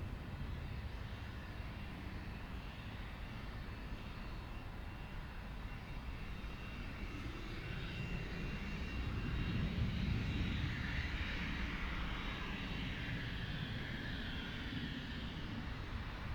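Bombardier Global 5000 business jet's twin turbofan engines, a rumble with a faint high whine that swells to its loudest about ten seconds in and then eases off as the jet passes.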